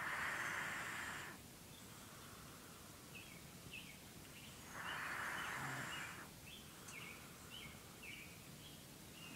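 Snoring: slow, breathy snores about every five seconds, each lasting just over a second, with faint high chirps between them.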